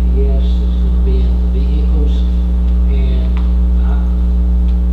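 Loud, steady electrical mains hum on the meeting's recording, with faint, indistinct talk underneath it.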